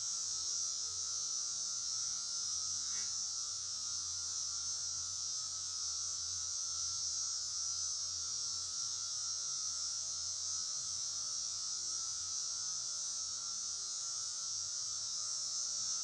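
Steady, unchanging low hum under an even high hiss.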